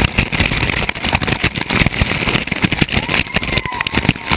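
Rushing white water in a canyon stream, splashing and sloshing right against the camera, with a dense run of irregular knocks and rumble from water striking the camera housing.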